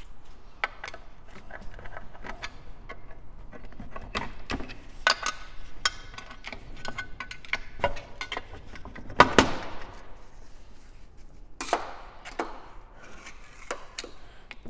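Hand tools and loose metal parts clicking and knocking against the aluminium casing of a PDK dual-clutch gearbox as it is worked on by hand. The knocks are irregular, with a louder clatter about nine seconds in.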